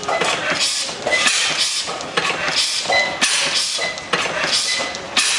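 Hille slide-valve stationary gas engine with flame ignition running, beating out a regular hissing pulse about once a second as its flywheel turns.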